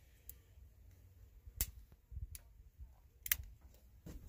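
A few sharp metallic clicks from a Ruger Super Blackhawk single-action revolver being handled and readied to fire. The loudest click comes about a second and a half in, and a double click about three seconds in.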